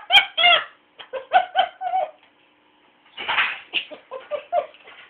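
A pet animal chattering in a run of short, pitched chirping calls, with one longer, harsher call about three seconds in.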